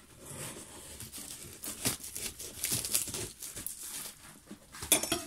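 Kitchen knife cutting and scraping through packing tape and cardboard on a heavily taped parcel, with irregular tearing and crinkling strokes and a louder burst near the end.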